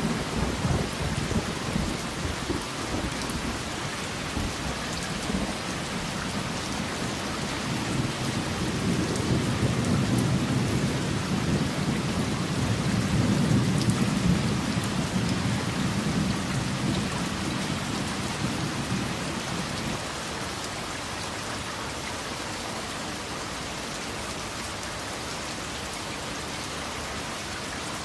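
Steady rain with rolling thunder. A low rumble swells from about eight seconds in, peaks near the middle and dies away around twenty seconds, leaving only the even hiss of the rain.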